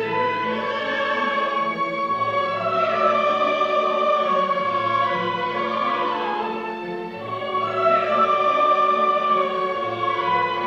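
Live opera orchestra playing dance music, with a chorus singing, heard from the audience in a theatre hall.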